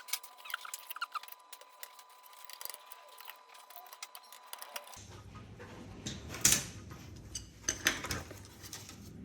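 Scattered small clicks, taps and scrapes of hands working with the drone frame's small parts and screws, with a few sharper knocks in the second half.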